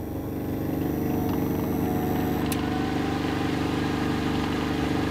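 Petrol generator engine running steadily, growing louder about a second in and then holding an even note.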